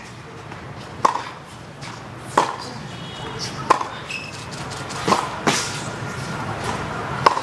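Tennis ball struck back and forth by rackets in a rally on a hard court: about five sharp pocks, a second and a half or so apart.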